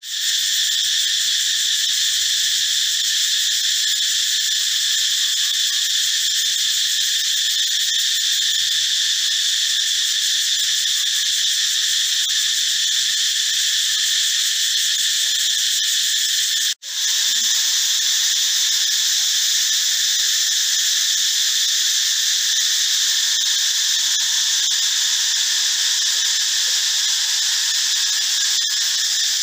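Male cicada calling: a loud, steady, high-pitched shrill drone that breaks off for an instant about two-thirds of the way through. It is the male's mating call, made with muscles in its abdomen.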